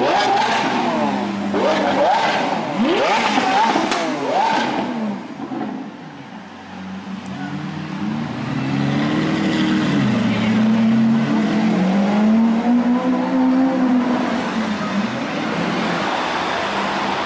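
Lamborghini Aventador's V12 engine revved hard in several quick blips, each rising sharply in pitch and dropping back. After a short lull, an engine's pitch climbs and falls more slowly a few times as it accelerates and eases off.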